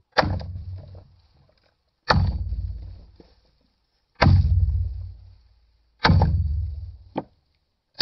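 Hatchet chopping into the end of a cedar log: a heavy blow about every two seconds, each a sharp crack with a deep thud trailing off, and a lighter blow shortly after the fourth.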